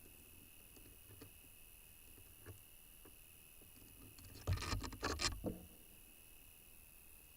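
A short flurry of scratching and tapping, about a second long, a little past the middle: birds moving about on the nest box, with a few faint ticks before it over a steady faint hiss.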